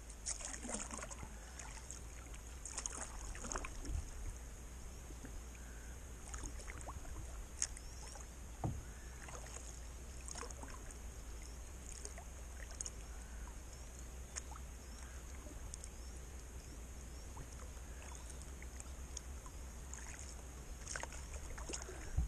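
Kayak paddling: quiet splashes and drips from the paddle every few seconds, with a few light knocks on the hull, over a steady low rumble.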